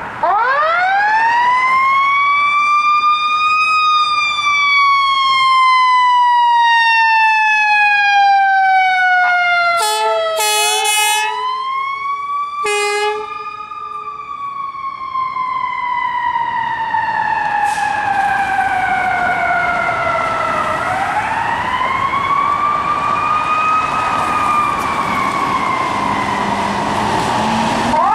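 Fire truck's siren rising quickly and then falling slowly in long sweeps, three times over, with two short air horn blasts, the first a long one and the second brief. Near the end the diesel engine revs as the ladder truck pulls out of the station.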